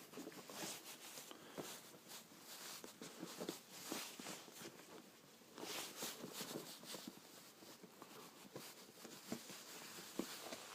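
Soft, irregular rustling and scraping of cardboard and packaging as an iPad box is handled and opened, with a few small clicks and taps.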